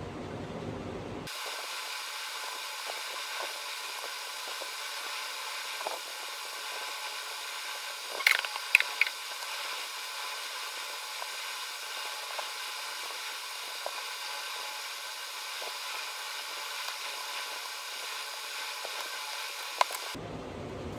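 Steady hiss with scattered faint ticks, and a short cluster of sharp clicks about eight to nine seconds in.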